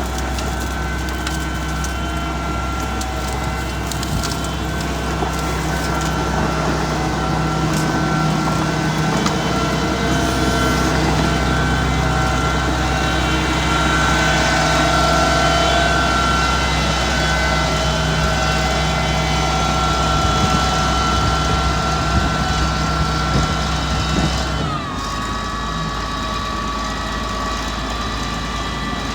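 Mitsubishi MG430 motor grader's diesel engine running steadily under load, with crackling and snapping as brush and roots are scraped up during clearing and grubbing. About 25 seconds in the engine pitch drops and settles lower.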